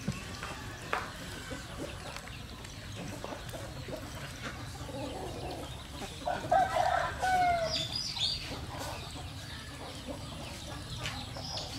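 A rooster crows once about six and a half seconds in, over a steady low rumble.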